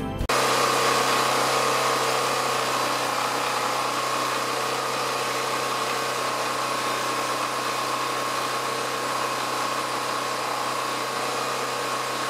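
DuroStar DS4000S portable gasoline generator running steadily: an even engine hum with a constant higher whine over it.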